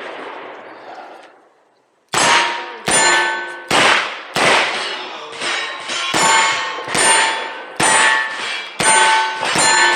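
A rapid string of pistol shots, about one every 0.7 seconds, starting about two seconds in, each ringing a steel target with a metallic clang.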